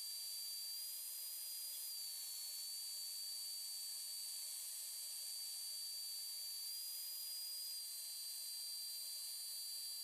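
CNC router spindle with a 1/8-inch single-flute end mill cutting plywood on an MPCNC Primo, played back at ten times speed: a steady high whine over a hiss, its pitch stepping up slightly twice and settling back.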